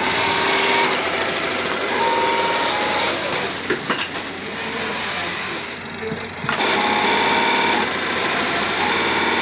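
Industrial sewing machine running at speed as it stitches denim. Its run is broken in the middle by a few sharp clicks and a quieter stretch of about two seconds, and then it runs at full speed again.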